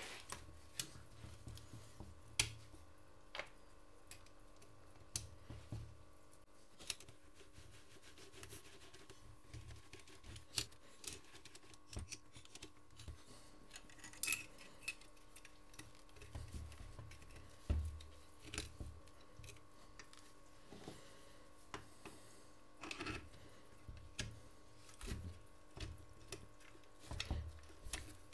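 Small steel engine parts and tools clicking, clinking and tapping against an aluminium motorcycle-engine crankcase as they are handled and fitted by hand, in scattered irregular clicks and light knocks.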